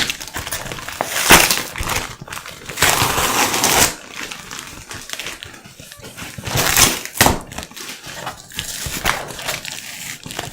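Irregular crinkling and rustling, like something being handled or crumpled, in uneven bursts, the longest lasting about a second.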